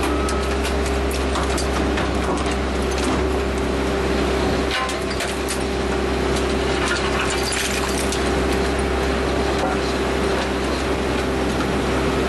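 Engine crusher running: a steady drive hum with a constant tone, broken by many irregular sharp cracks and clatter as material is crushed and fragments drop out of the chute.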